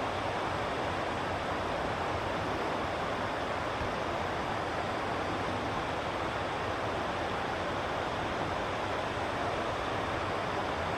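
Steady rushing of flowing river water, an even unbroken wash with no bird calls standing out.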